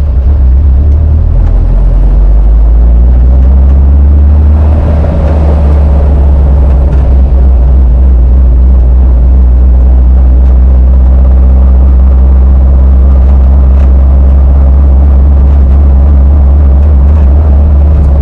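Porsche 914's air-cooled boxer engine running loud and steady at a slightly high idle, cold and freshly started after a new fuel pump cured its no-start. The engine speed rises briefly about three to five seconds in, then settles back.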